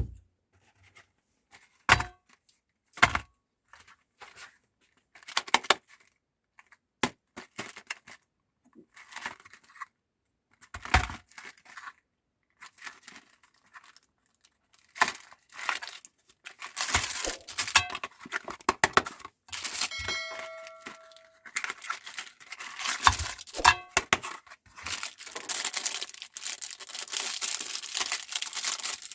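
Crinkly plastic wrapper being handled and torn open. Scattered rustles and clicks at first, then about fifteen seconds in, continuous crinkling and tearing.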